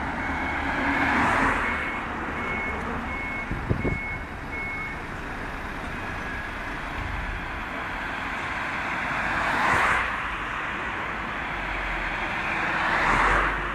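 Road traffic on a city street: cars driving past, each rising and falling as it goes by, about a second in, around ten seconds in, and near the end. A high electronic beep repeats at an even pace, a little faster than one a second, for the first five seconds or so. A single sharp knock sounds about four seconds in.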